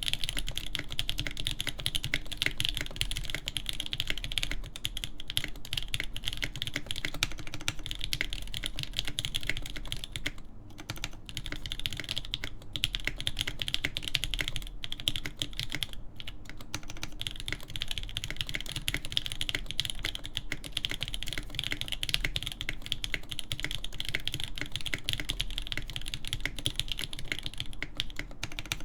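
Continuous fast typing on a custom mechanical keyboard: a hineybush TKL One in a polycarbonate case with a POM plate, lubed Durock L7 linear switches and GMK keycaps. A dense, steady run of keystroke clacks, with a few short pauses around the middle.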